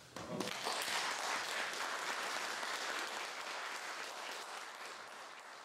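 Audience applauding at the end of a classical guitar performance, breaking out suddenly and slowly tapering off toward the end.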